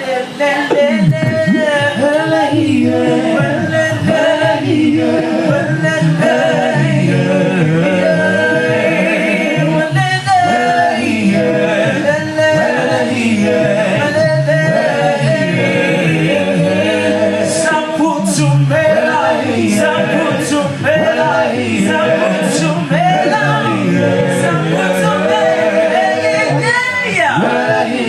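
A cappella vocal group singing in several-part harmony with no instruments, with a few sharp ticks over the voices past the middle.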